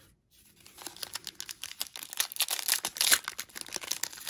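Foil wrapper of a hockey card pack crinkling and tearing as it is ripped open by hand, starting about half a second in.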